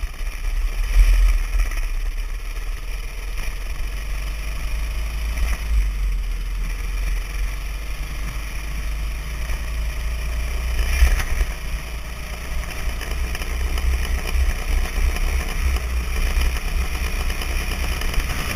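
Dirt bike being ridden, its engine running under heavy wind buffeting on the microphone, with louder gusts about a second in and again about eleven seconds in.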